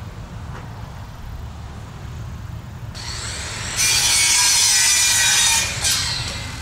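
Power saw spinning up about three seconds in and cutting through engineered wood composite siding for about two seconds, then winding down near the end.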